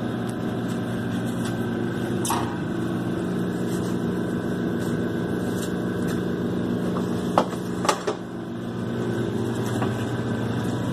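Steady motor hum, with a few sharp knocks and clanks as a trailer wheel and tire are handled onto a tire changing machine's steel turntable; two of the knocks come close together about seven and a half seconds in.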